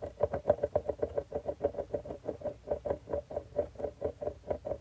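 Coffee mug rolling and rocking on a tabletop: a fast, even run of short clattering knocks, about nine a second, each with a brief ringing note.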